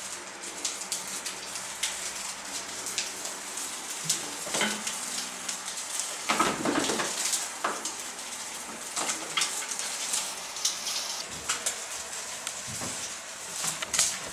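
Curling ribbons tied to an electric fan fluttering in its airflow, a steady rapid crackling patter. A few louder knocks and scuffs stand out, most around six to seven seconds in and again near the end.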